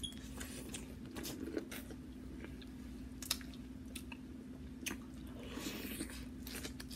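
Biting into and chewing boiled corn on the cob: scattered soft crunches and wet clicks of kernels coming off the cob, over a low steady hum.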